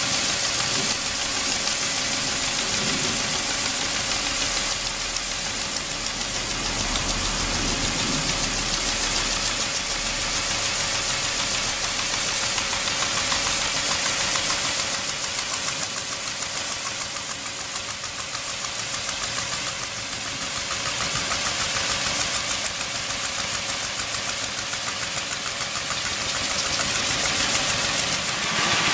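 Pressure washer running and spraying through a mechanical swing nozzle: a steady hiss of water jet with a fast, even pulsing and a constant hum from the machine.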